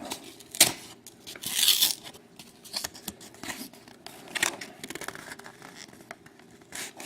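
Packaging of a trading-card box topper being torn and crinkled while the card inside is worked out. A sharp snap comes about half a second in, and a longer tearing rustle follows at about two seconds.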